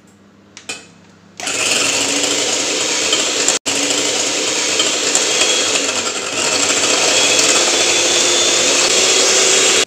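Electric hand mixer switched on about a second and a half in, its twin wire beaters whirring steadily as they beat two raw eggs in a ceramic bowl. A short knock comes just before it starts, and the whirr cuts out for an instant about three and a half seconds in and runs a little louder later on.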